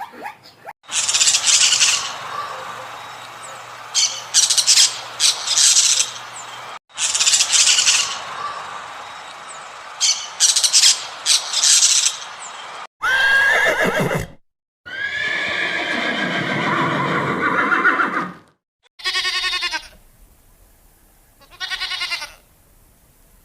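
A series of animal calls from separate recordings, cut abruptly one after another. The first half holds repeated short, hissy, high-pitched squawks; after a cut come longer calls with a sliding pitch, then two short pitched calls near the end.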